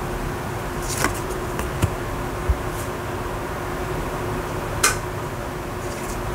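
Tarot cards being handled in a flip-through: a few short clicks and taps of card on card, the loudest about five seconds in, over a steady background hiss and hum.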